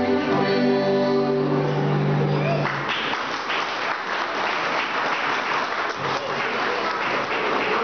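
Accordion and acoustic guitar ending a piece on a long held chord, then audience applause breaking out about three seconds in and carrying on.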